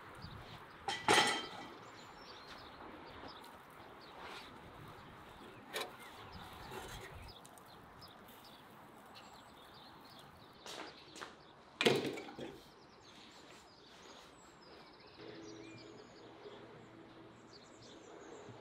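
Quiet outdoor ambience with faint birdsong, broken by loud clunks of cookware being handled: one about a second in as the clay tandoor's lid is set aside, a lighter knock near six seconds, and another loud clunk near twelve seconds as the rack of roast chickens is lifted out.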